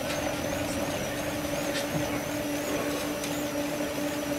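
Bicycle trainers whirring under two riders pedalling steadily: a constant hum with a high whine that wobbles in pitch several times a second.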